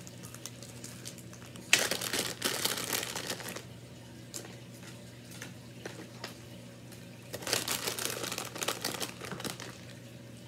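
Crinkly plastic packaging being handled and crumpled in two bursts, one about two seconds in and one past the middle, over a faint steady low hum.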